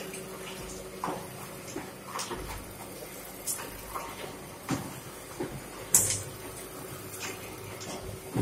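Fully automatic double-die paper plate making machine running: a mechanical clunk about every second and a quarter as it cycles, with lighter clicks between, over a steady motor hum.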